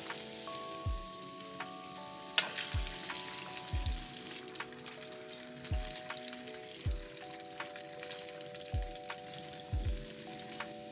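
A fresh batch of cornstarch-coated chicken pieces deep-frying in a wok of hot oil: a steady sizzle with scattered small crackles. Background music with a regular thumping beat plays over it.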